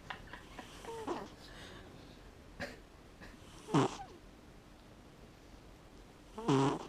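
A sleeping cat snoring, one snore about every three seconds: a faint one about a second in, then louder ones near four seconds and at the end.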